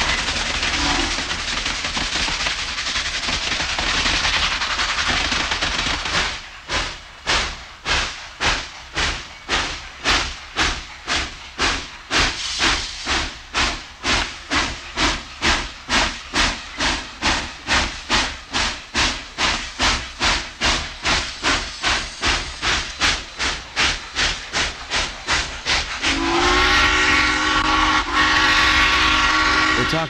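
Steam locomotive working past: a steady rush of steam and running noise, then sharp exhaust chuffs at about two and a half a second, and a long steam whistle blast for the last few seconds.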